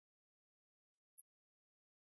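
Near silence, broken only by two tiny, very high-pitched ticks about a second in.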